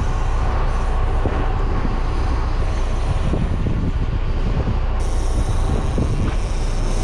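Wind buffeting the microphone on an open boat deck at sea: a loud, steady, gusting rumble.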